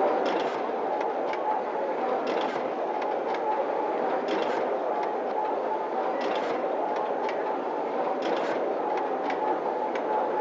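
Artos MTX cut-strip-crimp wire processing machine running in production, with a steady hum and whir. It makes a sharp clack about every two seconds, with lighter clicks between, as it cycles through each wire.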